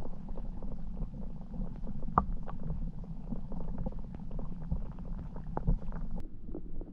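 Muffled underwater sound of river water flowing, heard through a camera submerged in the current: a steady low rumble with many small clicks and ticks over it. The higher part of the sound drops away about six seconds in, leaving it duller.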